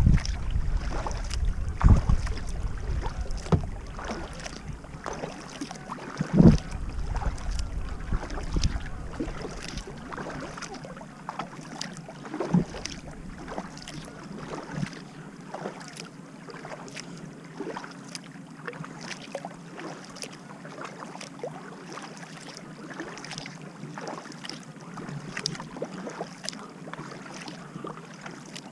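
Kayak paddling on calm water: the paddle blades dip in and water splashes and drips off them, with the hull slipping through the water. In the first dozen seconds wind rumbles on the microphone and there are a few low thumps; after that only the paddle splashes and drips remain.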